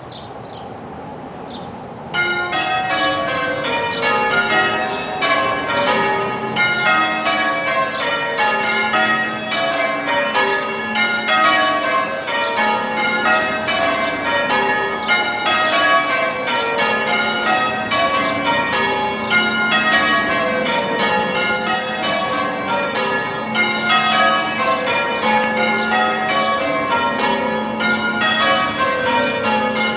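A ring of six church bells in change ringing, the bells struck one after another in a steady, even rhythm. The ringing starts abruptly about two seconds in.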